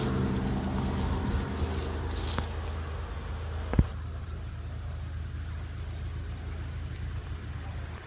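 A motor vehicle's engine running steadily with a low hum that eases off over the first few seconds. A single sharp click comes nearly four seconds in.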